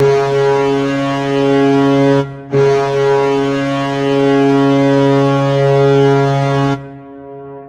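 Hockey goal horn sounding in two blasts of one steady low tone. A short blast of about two seconds is followed by a brief break, then a longer blast of about four seconds that cuts off and fades.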